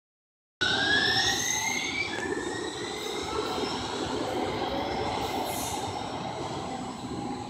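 Muni Metro light-rail trains in an underground station: a steady rumble of running gear with a whine that rises in pitch over the first couple of seconds, and squealing wheels. The sound starts abruptly about half a second in.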